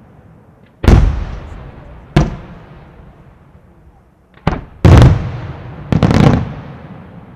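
Aerial firework shells bursting: five loud booms, each followed by a fading echo, with two coming close together about halfway through.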